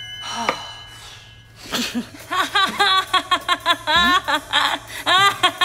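A cartoon woman's voice giggling: a rapid run of short, high, rising laughs that starts about two seconds in, after the tail of a fading chime and a soft whoosh.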